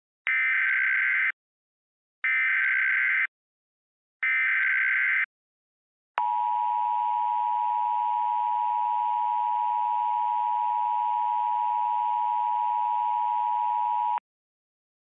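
Emergency Alert System tones: three one-second bursts of SAME header data, about two seconds apart, encoding a tornado warning (TOR). Then the two-tone EAS attention signal (853 and 960 Hz) holds steady for about eight seconds and stops abruptly.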